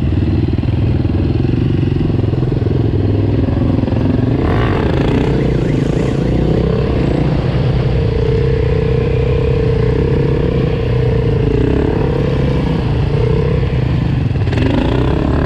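Single-cylinder supermoto motorcycle engine running, with a brief rev about four and a half seconds in and another near the end as the pitch rises.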